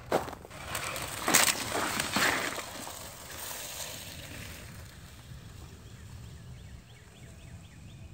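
Crunching and scraping on icy, sleet-crusted snow: a few sharp strokes in the first couple of seconds, then a quieter steady hiss as a sled slides away down the slope.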